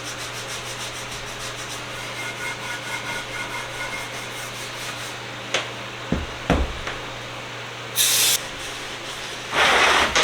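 Steady hand scraping and scrubbing of grease and rusty grime off the parts of a Hollands bench vise. A few sharp knocks come about halfway through, and two short loud hissing bursts come near the end.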